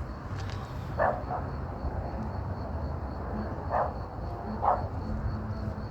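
A dog barking four short times, two close together about a second in and two more a little under a second apart later on, over a steady low background rumble.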